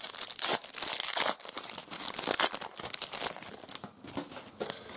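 Foil wrapper of a trading card pack being torn open and crinkled by hand: dense, irregular crackling and tearing, busiest in the first three seconds and thinning out near the end.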